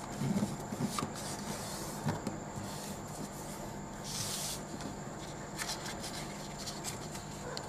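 A sheet of paper being folded by hand on a table: soft thumps as the hands press it down in the first two seconds, and a brief rustle of paper sliding about four seconds in, over a steady background hum.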